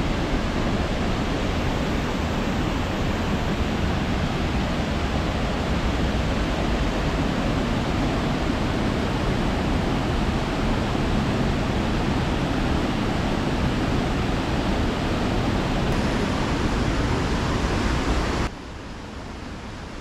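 Water pouring over the low mill dam on Slippery Rock Creek: a steady, loud rush of whitewater. Near the end it drops suddenly to a quieter rush of the creek running over rocks.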